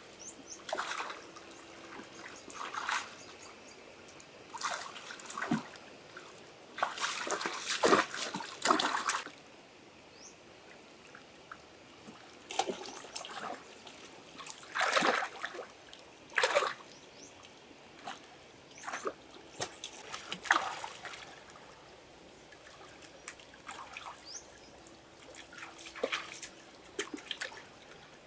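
Water splashing and dribbling in short, irregular bursts, the longest and loudest about eight seconds in.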